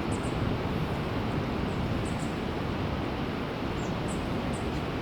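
Steady, unbroken roar of Kaieteur Falls' plunging water, with a few faint, short, high chirps above it.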